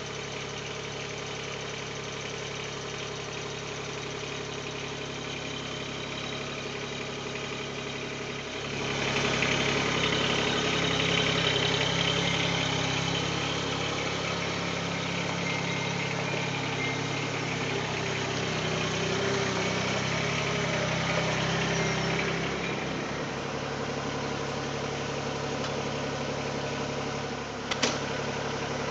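Mahindra eMax 20S HST compact tractor's diesel engine running steadily while working the backhoe. About a third of the way in it gets louder and works harder for roughly fourteen seconds, then eases back. A single sharp knock comes near the end.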